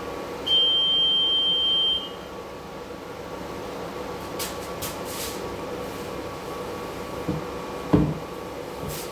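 A commuter train's electronic door warning beeps once, a steady high tone held for about a second and a half, over the steady hum of the standing train. About eight seconds in there is a short, loud thump.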